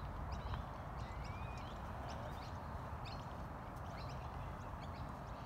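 Small birds chirping in short, high notes several times a second, over a steady low rumble of outdoor air.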